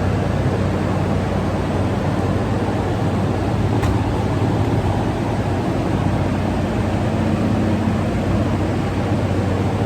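Electric fan running steadily: an even rush of air with a low motor hum underneath, and a faint click about four seconds in.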